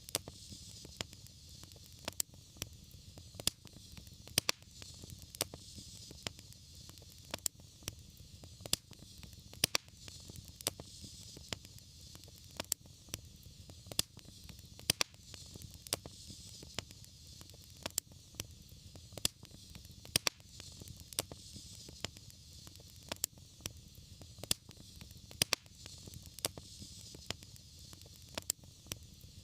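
Fireplace fire crackling: sharp, irregular pops several times a second over a steady low rumble and a soft hiss.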